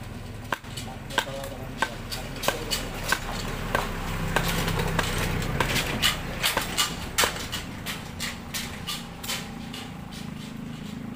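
A small motorcycle engine running steadily, with many irregular sharp knocks and rattles over it that come thickest in the middle, like a bike jolting over rough ground.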